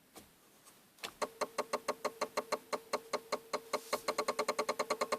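Rapid clicking from under the steering wheel of an Audi 80 1.9 TDI, the car's unexplained strange noise. It starts about a second in at about five clicks a second, over a steady tone, and speeds up to about eight a second near the end.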